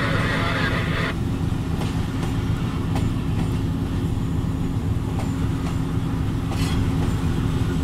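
Diesel locomotive running under way, a steady low engine drone and rumble, with a few faint clicks of wheels over rail joints.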